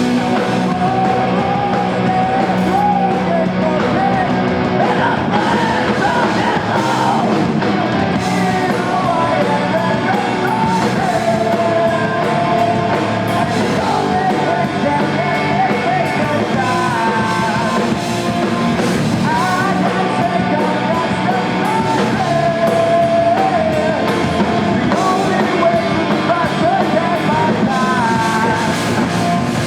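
Live rock band playing loudly, with a singer's voice over guitars and drums.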